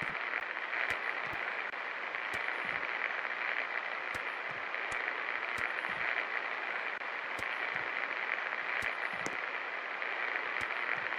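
A 24-inch Kashmir Nabeel ceiling fan running with a steady whirring hiss, and scattered faint clicks.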